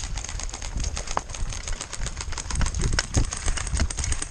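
Rapid, irregular crackling and rustling of a player moving through brush on foot, with low rumbling thumps of wind buffeting the body-worn microphone.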